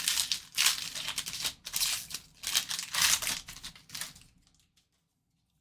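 Plastic wrapper of a trading-card pack crinkling and tearing as it is opened, in a run of bursts that stops about four and a half seconds in.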